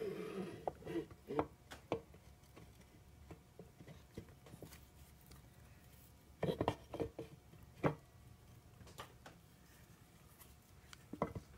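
Scattered light clicks and taps of hands handling the oil pump and gasket at the front of a transmission case, with a short cluster of them about six and a half seconds in.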